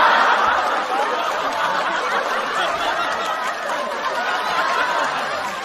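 Studio audience laughing at a punchline. The laughter is loudest at the start and slowly dies away.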